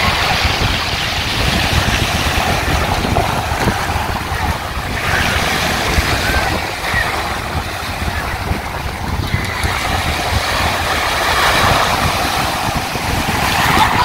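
Rough sea surf washing and breaking along the shore, with wind buffeting the microphone in a low, gusty rumble.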